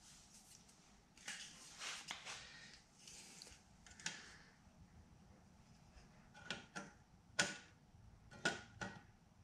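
Aluminium spacer and spirit level being handled on a metal stand frame: light scraping and rubbing, then a click and several sharp metallic clinks and taps as the level is set on the spacer and shifted.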